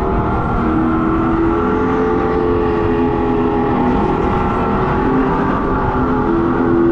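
Synthetic engine sound played from a speaker behind a go-kart seat, its pitch stepping up and down with the throttle, over the rushing noise of the kart at speed.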